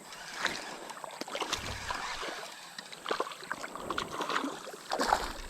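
Creek water splashing and sloshing in uneven bursts, with small knocks and clicks mixed in.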